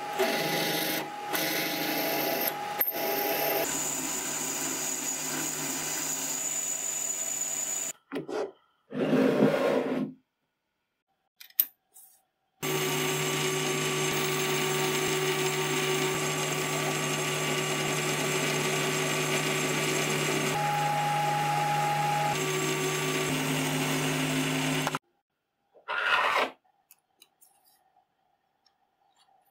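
Metal lathe cutting a spinning stainless-steel rod, first with a twist drill boring into its end, then with a carbide insert turning it: a steady machine drone with high steady whines. The two long stretches of cutting are broken by a few seconds of near silence with brief bursts, and the sound drops away again near the end.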